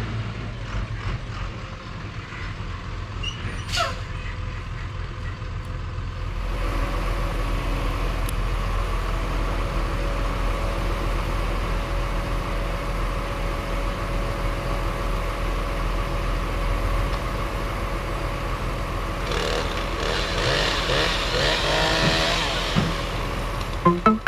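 A heavy truck's engine running steadily, louder from about six seconds in. There is a sharp downward-sliding whistle about four seconds in and a burst of wavering squeals near the end.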